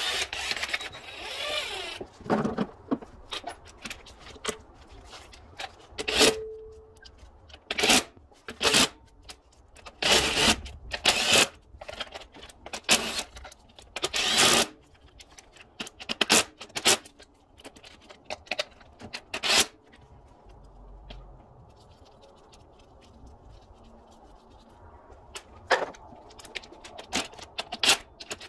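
Ratchet working bolts on a V6's intake manifold: short, irregular bursts of clicking and tool clatter, with a quieter pause a little past the middle.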